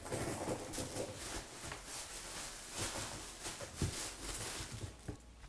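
Paper and fabric rustling, crackly and continuous, as a handbag is handled in its dust bag and a cardboard gift box, with a light knock about four seconds in.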